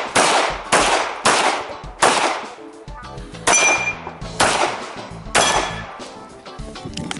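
Semi-automatic pistol fired about seven times in a course of fire, the shots half a second to a second and a half apart with a longer pause in the middle. A couple of the shots leave a brief metallic ring.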